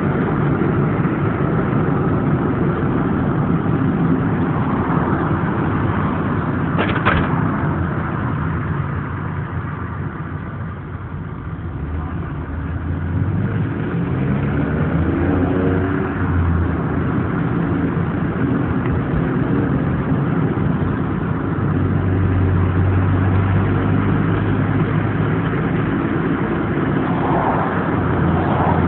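Aston Martin engine heard from inside the car while driving. A little before halfway the engine note rises as the car accelerates, then settles into a steady drone.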